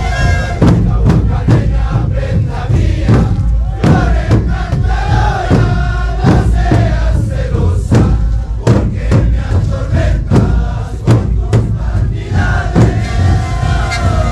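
Sikuri ensemble playing: many siku panpipes blown together in a breathy, massed melody over a steady bass drum beat of about two strokes a second.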